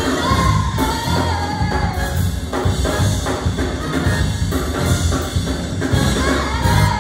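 Youth jazz big band playing live with several singers over drum kit, keys, guitar and horns. These are the song's final bars: the sung lines and drums hold loud and stop right at the end.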